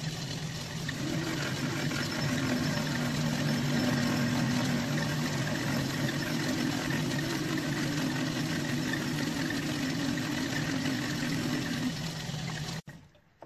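Metal lathe running with the cutting tool chattering on the workpiece: a steady drone over the motor hum. The machinist suspects the tool tip may be blunt. The sound cuts off suddenly near the end.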